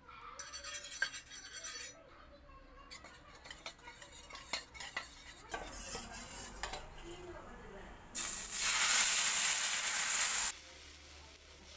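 Oil sizzling lightly on a hot tawa, then a steel spoon clinking and scraping as it stirs batter in a bowl. About eight seconds in, wheat batter poured onto the tawa over a high flame sizzles loudly for about two seconds, then cuts off.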